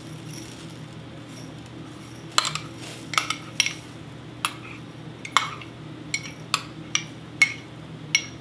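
Metal spoon clinking against a ceramic cup and the stainless steel pot of a double boiler as beeswax pellets are spooned in: about a dozen sharp, irregularly spaced clinks, starting about two seconds in.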